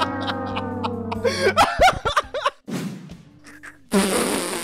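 Music with a long held note sliding slowly down in pitch, then laughter, then a short burst of noise near the end.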